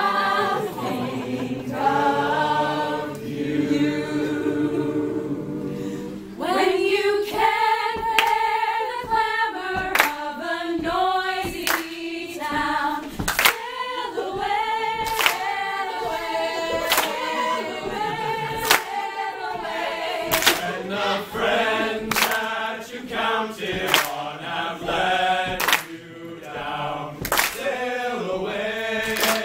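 Mixed a cappella choir singing. The voices hold chords for the first six seconds, then move into a livelier rhythmic passage with sharp clicks keeping the beat.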